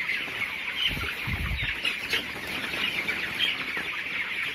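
A shedful of 22-day-old broiler chickens clucking and chirping in a dense, continuous chorus. The flock is suffering from chronic respiratory disease (CRD). A couple of dull low thumps come about a second in.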